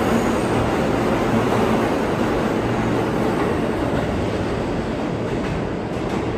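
New York City Subway (G) train running through a station: a steady rumble of wheels on rail that slowly grows fainter.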